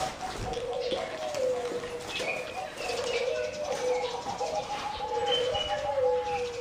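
Zebra doves cooing without a break, two or more birds calling over each other, with a few faint higher chirps.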